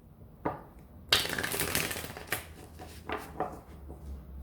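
Tarot deck being shuffled by hand: a dense rush of card noise lasting about a second, with a few sharp card snaps before and after it.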